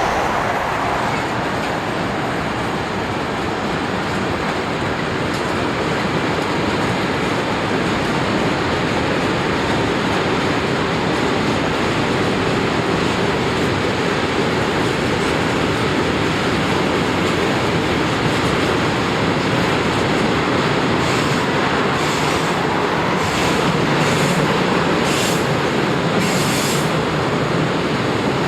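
A freight train's wagons rolling along the rails with a steady rumble. In the last several seconds, short high-pitched wheel squeals come and go.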